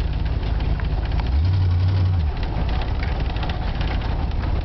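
Ford 289 V8 in a 1955 Ford pickup running as the truck drives over rough grass, heard from inside the cab. There is a steady low engine drone with cab rattle, and the low hum swells louder for about a second midway.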